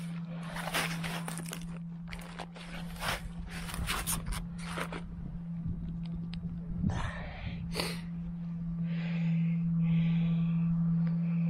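Snow crunching and scraping close to the microphone, a quick run of crunches over the first five seconds and two more a couple of seconds later, over a steady low hum.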